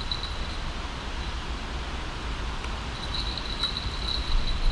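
Steady low rumble of traffic on the road bridge overhead, with an insect's thin high trill briefly at the start and again from about three seconds in.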